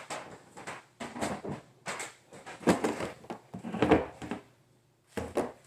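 Hard plastic CGC graded-comic slabs clacking and scraping against each other as a stack of them is handled and shuffled: a string of irregular knocks, with a short pause near the end.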